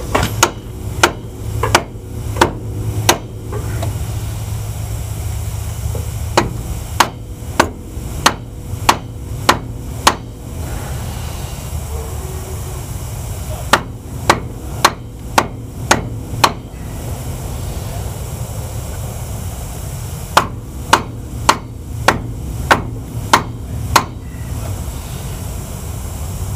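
Lead hammer striking the ears of a chrome knock-off wire-wheel spinner, beating it round in the on direction to tighten it. The blows come in four runs of six or seven sharp knocks, about two a second, with pauses of a few seconds between the runs.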